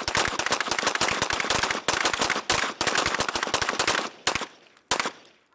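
Rapid, overlapping gunshots from several shooters firing together at once, a dense volley that breaks off about four seconds in, followed by two last single shots.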